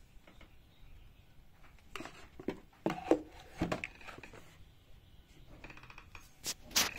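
Hard plastic drone parts and a cardboard box being handled: scattered knocks and rustles from about two to four seconds in, then a louder pair of sharp knocks near the end.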